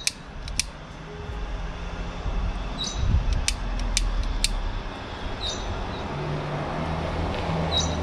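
A long-nosed butane lighter clicking a few times as it lights fire starters under lump charcoal, over a low steady rumble that comes in about a second in.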